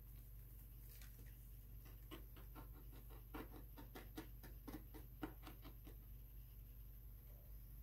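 A quick run of light taps and clicks, about four a second, starting about two seconds in and stopping about two seconds before the end, over a steady low electrical hum.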